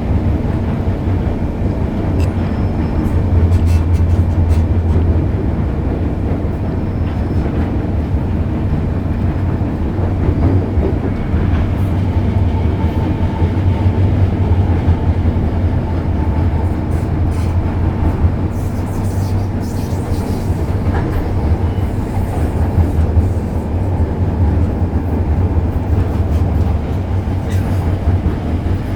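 MTR Kwun Tong line M-Train running along the track: a steady low rumble with scattered wheel clicks.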